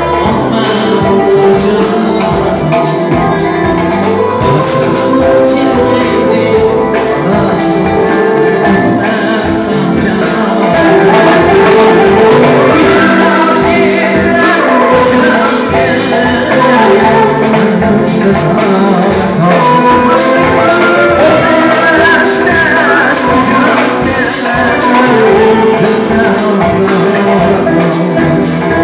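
A man singing live into a microphone, backed by a synthesizer keyboard and a doira frame drum keeping a steady beat, all amplified through PA speakers.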